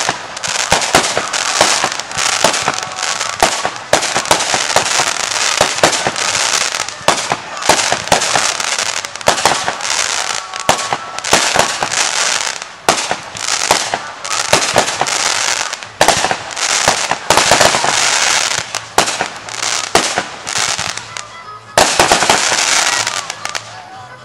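Fireworks going off continuously: repeated sharp bangs over a dense crackle, easing off near the end.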